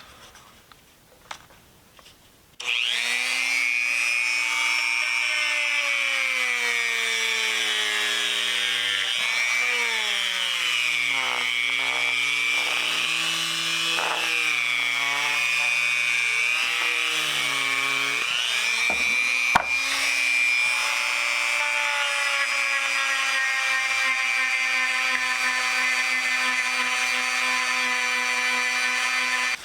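An electric power tool's motor polishing, its pitch sagging and recovering several times as it is pressed into the work, then steadying. A few seconds of quiet handling come before the motor starts, suddenly.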